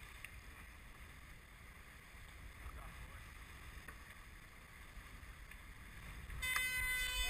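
Faint, steady rush of wind and water around a Farr 30 racing yacht under sail, with a low rumble of wind on the microphone. Near the end a steady pitched tone begins.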